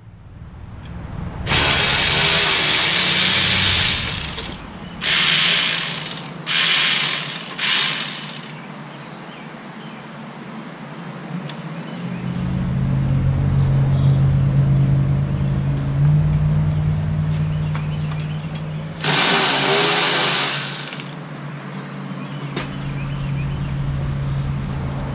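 A power tool run in five bursts: one long burst, three short ones close together, then another about two seconds long near the end. It is backing out the 8 mm bolts that hold the radiator. A steady low hum runs underneath in the later part.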